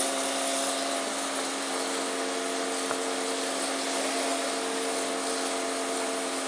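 Honda PCX scooter engine droning at a steady cruising speed, with wind and road noise rushing over the handlebar-mounted microphone.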